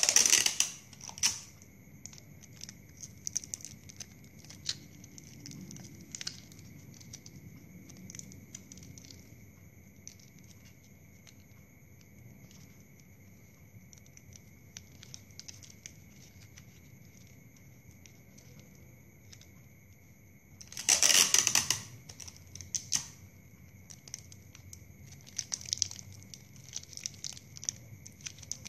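Clear adhesive tape pulled off its roll with a short ripping sound, twice: once at the very start and again for about a second two-thirds of the way through. Between the pulls come light rustles and clicks of plastic drinking straws being handled, over a faint steady high whine.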